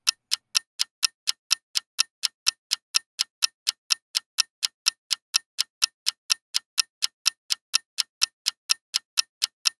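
Clock-ticking sound effect timing a countdown: sharp, evenly spaced ticks, about four a second.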